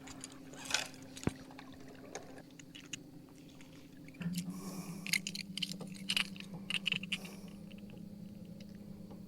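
Small clicks, knocks and wet handling noises as a just-landed bass and the lure in its mouth are handled, over a steady hum that drops lower and gets louder about four seconds in.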